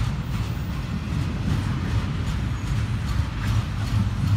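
Double-stack intermodal freight train rolling past: a steady low rumble of steel wheels on rail, with repeated clacks as the wheels pass over the track.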